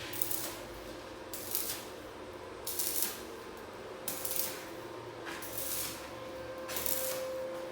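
Arc welding in short tacks: a run of brief crackling hisses, about one every second and a half, over a steady faint hum.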